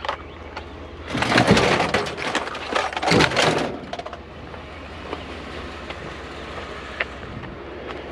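Objects clattering and rattling as a pile of junk is rummaged through by hand: two loud bursts of clatter, about a second in and again around three seconds, then quieter handling noises with an occasional click.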